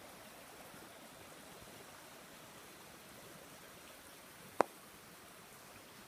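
Small river flowing: a faint, steady rush of water. One sharp click about three quarters of the way through.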